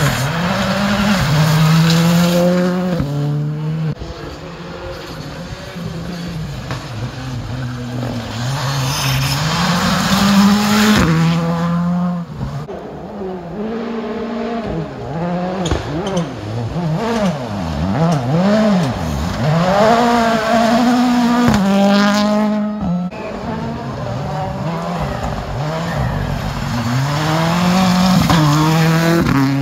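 Rally cars' engines revving hard on a gravel forest stage, one car after another. Their note climbs and falls over and over, with sharp drops in pitch about ten seconds in and again about twenty seconds in.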